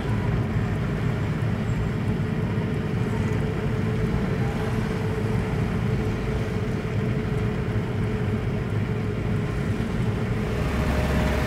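Car driving, heard from inside the cabin: steady engine and road noise, with a thin steady tone running above it.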